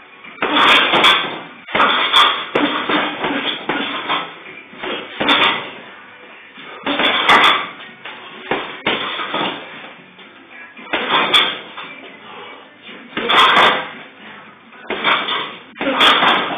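Gloved punches thudding into a hanging heavy bag, in irregular bursts every second or two, each blow sharp and quickly fading.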